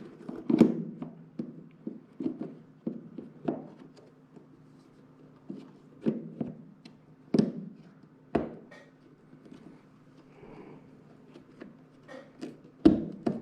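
Irregular knocks and taps with rustling handling noise between, as a K&N air filter is pushed and worked into a motorcycle airbox. A faint steady hum runs underneath.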